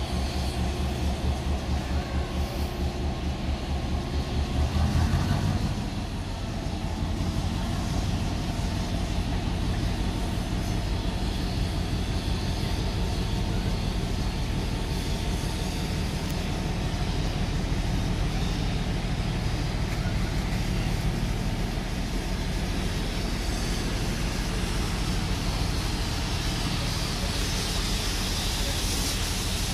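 Diesel locomotive hauling passenger carriages past: a loud low engine drone for the first five seconds or so, then the steady rumble of the carriages' wheels running over the rails as the train moves away.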